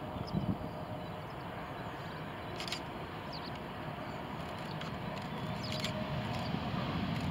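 Bombardier CRJ900 regional jet's rear-mounted turbofans running during the landing roll: a low rumble with a faint steady whine, getting louder near the end as the jet draws closer. Short bird chirps come through a few times.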